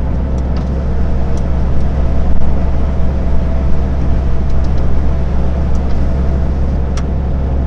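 Steady, deep drone of a truck's engine and tyres at motorway speed, heard inside the cab, with one sharp tick near the end.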